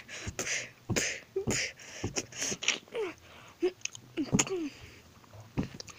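A person making short, non-word vocal sound effects: quick pitched cries and grunts, hissing and breathy mouth noises. Sharp knocks and rustles of toys being handled come between them, loudest about four and a half seconds in.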